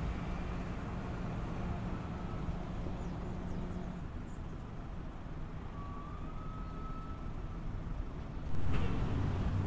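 Steady low rumble of motor vehicles, with a sudden louder noise about eight and a half seconds in.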